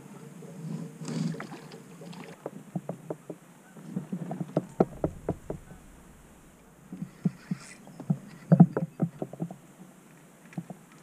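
Water lapping and slapping against a fishing kayak's hull, with irregular knocks and clicks from the boat and gear, as a hooked trout pulls the kayak around. The knocks come in loose clusters, the loudest about eight and a half seconds in.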